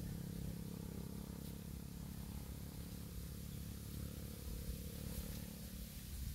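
A faint, steady low hum with a quiet outdoor background.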